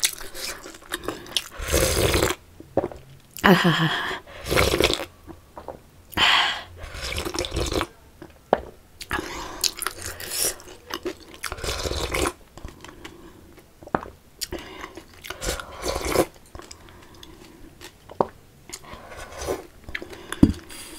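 Close-miked eating sounds: dal (lentil soup) slurped straight from a small steel bowl in a run of separate slurps, with chewing and swallowing in between.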